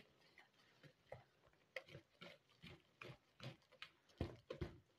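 Wire whisk stirring gram flour and water into a thick batter in a plastic bowl: faint wet squelches, about two a second, loudest near the end.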